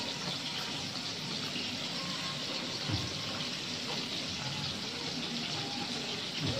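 Steady hissing and bubbling of a pan of squash and string beans simmering in coconut milk, with a soft knock about three seconds in and another near the end.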